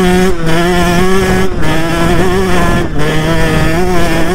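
KTM 125 SX two-stroke single-cylinder motocross engine running hard as the bike is ridden, its pitch holding fairly steady with brief dips about half a second, a second and a half and three seconds in.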